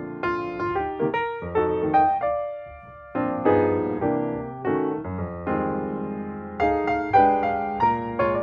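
Background music played on piano: notes and chords struck one after another, each fading away, with a short pause about three seconds in.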